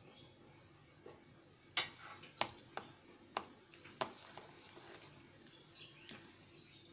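Faint, scattered clicks and taps as a wooden spatula stirs whole spices (cloves and cardamom) in a little hot ghee in a metal kadhai, about half a dozen of them between two and four seconds in.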